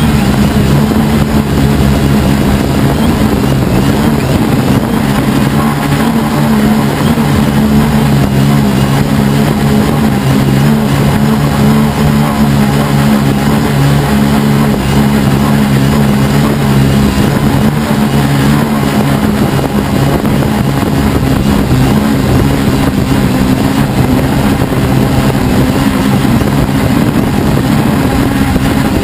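Helimax Form 500 quadcopter's motors and propellers buzzing steadily in flight, heard from a camera mounted on the aircraft: a loud, steady drone of several close pitches that waver slightly as the motors adjust.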